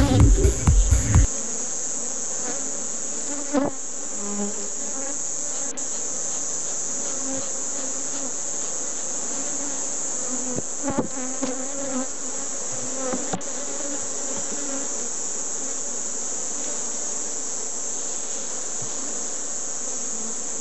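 Honeybees buzzing steadily over an opened hive, with a few light knocks of the wooden frames. A loud low rumble fills the first second and cuts off abruptly.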